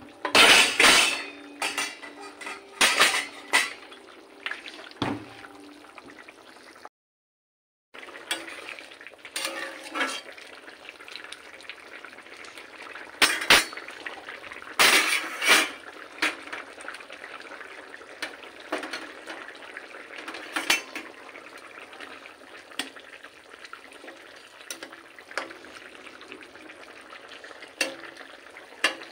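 Metal spatula scraping and clanking against an iron kadai as it stirs a curry, with a steady sizzle and bubbling between strokes. Clusters of strokes come near the start and again about halfway through. The sound cuts out completely for about a second a quarter of the way in.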